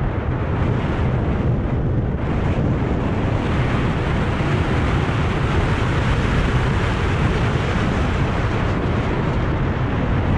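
Wind rushing over and buffeting a microphone moving fast downhill, a steady low rumble mixed with the hiss of sliding over packed snow. The hiss grows brighter about two seconds in.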